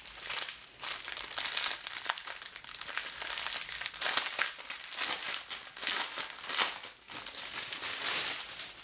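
Thin plastic packaging crinkling and rustling as small bags of diamond-painting drills are handled and sorted.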